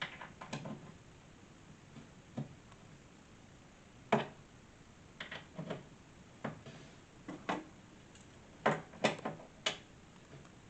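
Irregular knocks and clicks of a wooden storage chest's panels and hinge hardware being handled, with a sharp knock about four seconds in and a quick run of knocks near the end.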